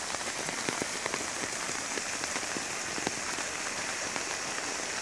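Steady rain falling on open, flooded ground: an even hiss dotted with many small drop ticks.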